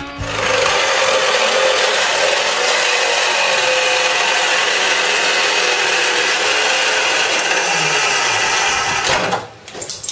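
Macroza wall chaser milling a slot into a hollow clay brick wall: a loud, steady grinding that starts just after the beginning and stops about nine seconds in.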